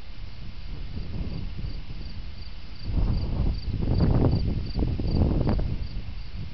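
A cricket chirping steadily, about three high chirps a second, under gusts of wind rumbling on the microphone that are loudest in the middle.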